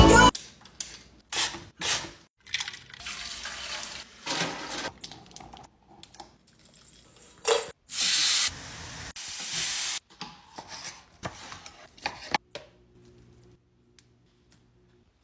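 A run of short, cut-together cooking sounds, mostly hissing: skirt steak sizzling on a hot flat-top griddle as it is turned with tongs is the loudest, a steady sizzle about eight seconds in. The sounds die away to very faint in the last couple of seconds.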